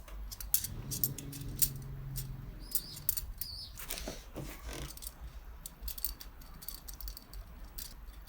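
Steel wire spokes clicking and clinking against each other and the hub as they are threaded in while lacing a moped's spoked wheel, in light irregular ticks.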